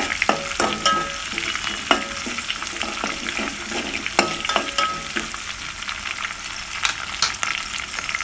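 Sliced onions and curry leaves sizzling in hot oil in an aluminium pot, with a steady hiss. A metal spoon stirs and scrapes against the pot, clicking and squeaking in the first couple of seconds and again around the middle, then only now and then.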